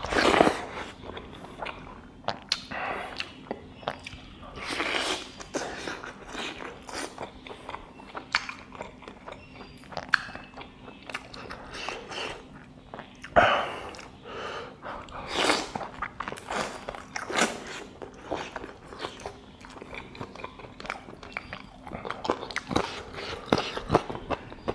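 Close-miked eating sounds from a person eating chicken curry with rice by hand: biting meat off a chicken leg piece and chewing, a string of short smacking bites with several louder ones.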